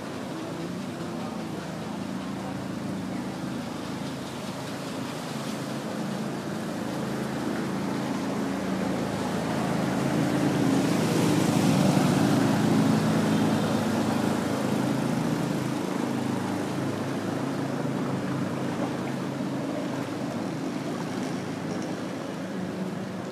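Motorbike engine running as it wades through flood water and passes close about halfway through, growing louder and then fading, with the splash and wash of the water it throws up.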